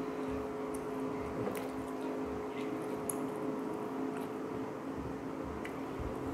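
Wet, squishy chewing and mouth sounds of someone eating, with scattered small clicks, over a steady low hum.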